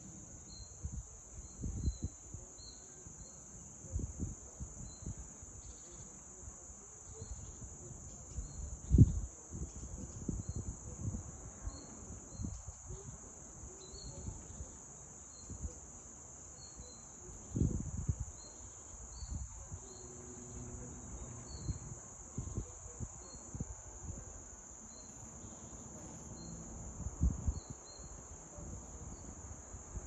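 Steady high-pitched insect chorus, with short higher chirps repeating about once a second over it. Irregular low thumps and rumbles break in now and then, the loudest about nine seconds in.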